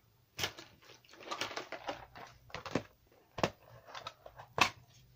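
Clear plastic compartment storage box being handled: rustling, and a few sharp plastic clicks and knocks, the loudest about four and a half seconds in.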